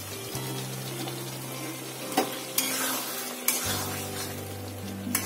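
Thick chicken curry sizzling in a pan while a spatula stirs it, with a few sharp knocks and scrapes of the spatula against the pan. A low steady hum runs underneath.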